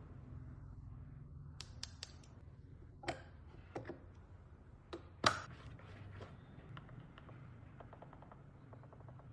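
Scattered clicks and taps from handling equipment, a few single knocks with one sharper click about five seconds in, over a low steady hum.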